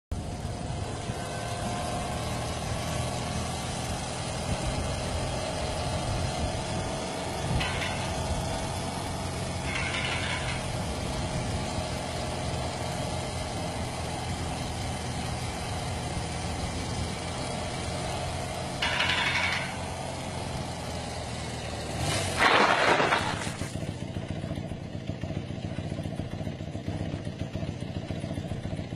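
Motorcycle engine running steadily, with a few short noisy bursts over it and a louder one about 22 seconds in.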